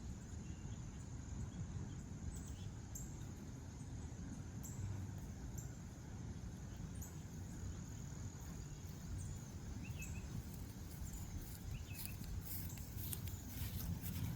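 Outdoor ambience: insects trilling in a steady high-pitched band, a few short bird chirps, and a low steady rumble. Near the end come a few soft clicks and rustles.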